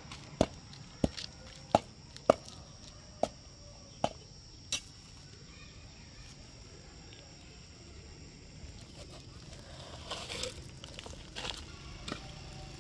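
A long-handled hand tool chopping into gravelly ground: seven sharp strikes in the first five seconds, then a pause and some softer scuffing near the end.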